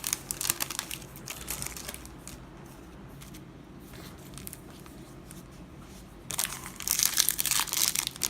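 Foil wrapper of a Yu-Gi-Oh booster pack crinkling and tearing as it is ripped open by hand. It crackles through the first two seconds, goes quieter, then crinkles and tears loudly from about six seconds in.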